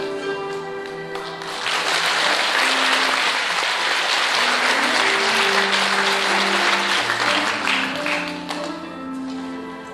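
Slow instrumental music with long held notes, and an audience applauding over it. The applause swells about two seconds in and dies away near the end, leaving the music alone.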